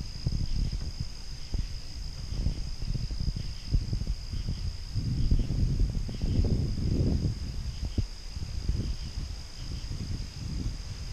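Gusty wind buffeting the microphone in uneven low rumbles that swell and fade, over a steady high-pitched insect chorus.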